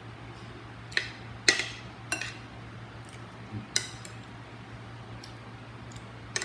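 Eating utensils clinking against a plate or bowl about five times, the loudest about a second and a half in, over a low steady hum.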